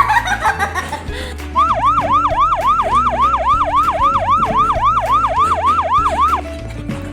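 A siren sound effect yelping fast, about three pitch sweeps a second, starting about a second and a half in and stopping about a second before the end. It plays over background music with a repeating bass line.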